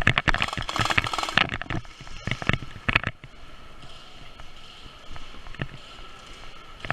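Airsoft guns firing: a rapid stream of shots in the first two seconds, a couple more near three seconds in, then occasional single shots.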